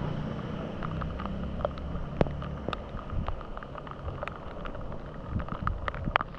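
Wind buffeting the camera microphone with a low rumble that eases after about two seconds, over steady rain, with many irregular sharp taps on the camera.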